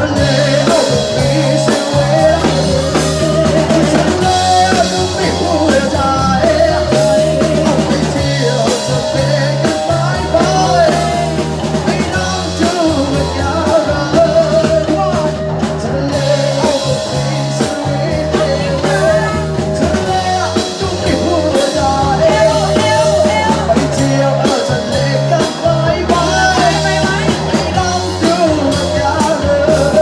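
Live rock band playing, with drum kit and electric guitar and a singer's voice over the top.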